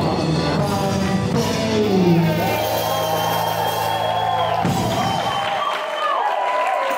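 Live band music from the stage. The bass and drums drop out about two-thirds of the way through, while higher held, wavering notes carry on.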